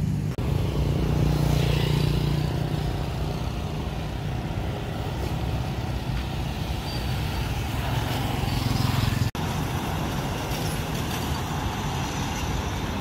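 Road traffic on a city street: cars and motorbikes driving past, the rumble swelling as a vehicle goes by, once about a second in and again near the middle. The sound drops out for an instant twice.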